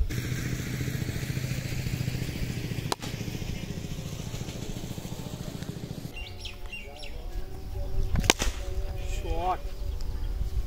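Black Mamba cricket bat striking a ball twice: a light knock about three seconds in and a sharp, loud crack a little after eight seconds. A steady low hum runs under the first half, and voices call out near the end.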